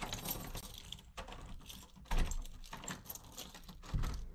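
Keys jangling and clicking as a key works a door lock beside a lever handle, with two dull thumps, one about two seconds in and one near the end.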